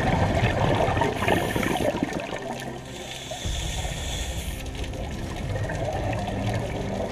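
Scuba diver breathing through a demand regulator underwater: a gurgling rush of exhaled bubbles, then a hiss of the inhale about three seconds in, then bubbles again.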